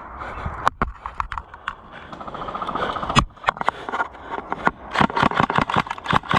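A string of irregular scuffs and sharp knocks, coming thicker toward the end, from a player moving on foot: footfalls and kit knocking close to the microphone.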